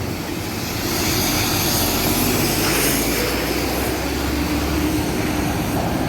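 Concrete mixer truck's diesel engine running steadily with a low rumble as the truck manoeuvres.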